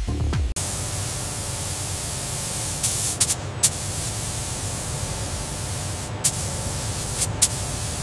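Compressed-air spray gun hissing steadily as it sprays a coating, starting abruptly about half a second in, with a few brief louder spurts, over faint background music.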